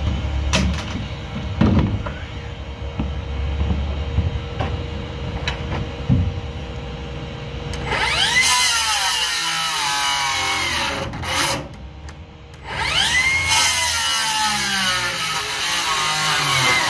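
A red handheld power tool worked into a stack of wooden boards, running in two bursts of about three and four seconds. Each time its motor whine climbs and then slowly sags as it bites into the wood. Before it starts, there are a few knocks and low rumble.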